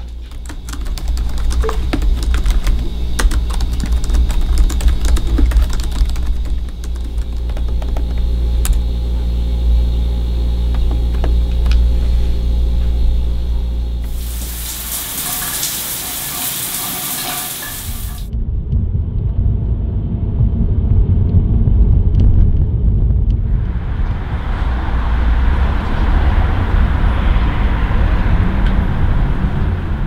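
Steady low hum with scattered small clicks. Then a shower head sprays water for about four seconds. A low rumble follows, and then a steady rushing noise.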